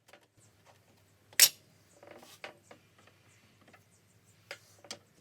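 Hand file working a small metal lathe spigot in short scraping strokes, with scattered ticks and one sharp metallic clink about a second and a half in, trimming it down to fit its hole.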